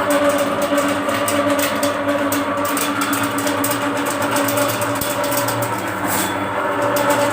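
Electric drain-cleaning machine running steadily: a motor hum with a rapid rattle of clicks from the spinning cable.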